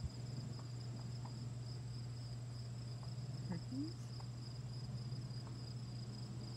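Steady trilling of insects, over a constant low hum. A brief rising call sounds a little past halfway through.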